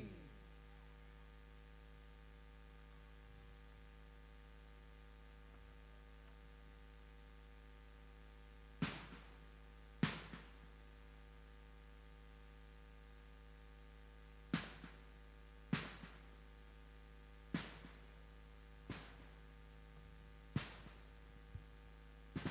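Steady electrical hum from a sound system with no one at the microphone. From about nine seconds in, a string of sharp clicks or knocks, about one every second or two.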